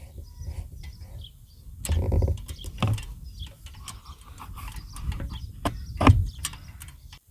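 Irregular knocks and clicks of hard objects being handled, loudest about two seconds in and again about six seconds in, over a low steady rumble.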